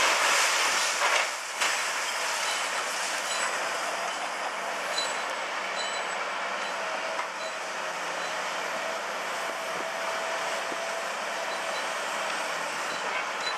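Demolition excavators at work, among them a Liebherr 954 long-reach machine: a steady, dense din of machinery and concrete rubble being worked, loudest in the first two seconds, with a faint thin whine midway and a few short metallic squeaks.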